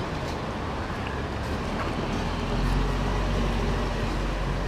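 Steady outdoor background noise with a low rumble that swells for about a second midway through.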